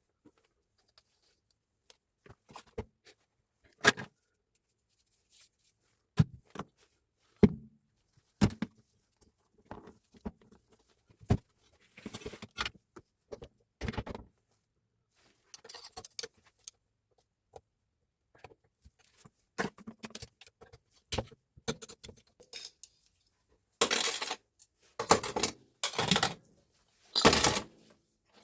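Metal parts and hand tools clinking, tapping and knocking in irregular short bursts during work on a Hilti TE 905 demolition hammer, with a few louder, longer rattling and scraping sounds near the end.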